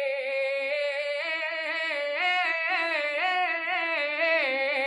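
A man singing an Urdu naat unaccompanied, drawing out a syllable without words: a long wavering held note, then a run of notes climbing and turning in ornaments.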